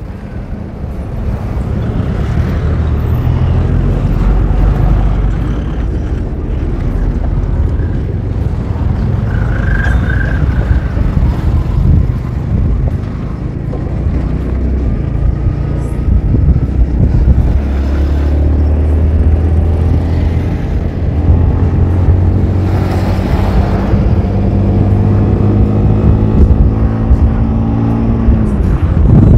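A motorcycle engine runs under way, with wind buffeting the microphone. In the last third the engine note climbs steadily as the bike accelerates, then drops off sharply at the end.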